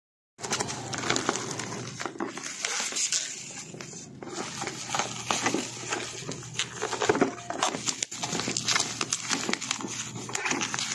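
Plastic packaging rustling and crinkling as a parcel is handled and unwrapped, with irregular crackles and clicks that start suddenly just after the beginning.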